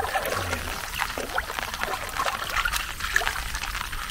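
Water trickling and splashing, with many small scattered clicks.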